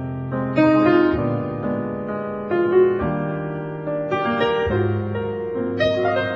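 Background piano music, with notes and chords changing every half second or so.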